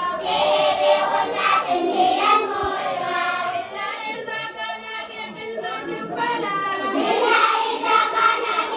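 A group of children singing together in chorus, louder at the start and again near the end.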